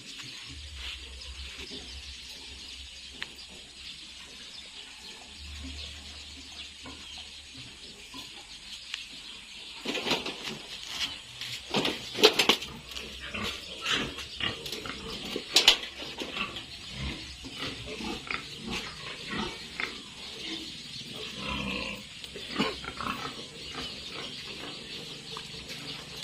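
Piglet squealing without pause, with the loudest, sharpest shrieks between about 10 and 16 seconds in: the distress squeals of a piglet being held for castration.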